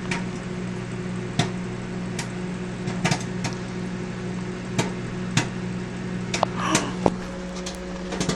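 Microwave popcorn popping inside a running microwave oven: a steady low hum with scattered sharp pops, about one or two a second.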